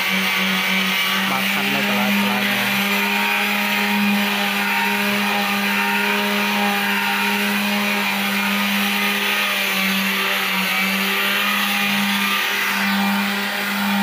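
A motor running steadily: a constant low hum with an even hiss over it.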